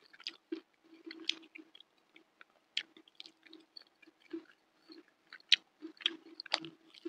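Close-miked chewing of mouthfuls of fried tofu with chili sambal and rice, with irregular short mouth clicks.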